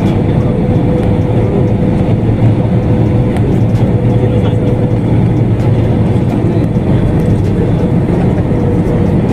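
Steady roar inside the cabin of an Airbus A320-family jet airliner in cruise flight: engine and airflow noise, with a steady hum running through it.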